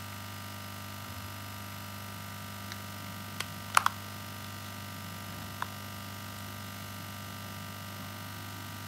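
A few small, sharp clicks of hard plastic as the two halves of a plastic lamp power-adapter housing are pressed and snapped together, the loudest a quick pair about four seconds in, over a steady low hum.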